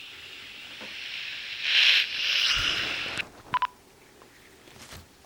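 Snoring: hissing, raspy breaths through the nose or throat that swell to a peak about two seconds in and fade out after about three seconds. Two short electronic beeps follow, about halfway through.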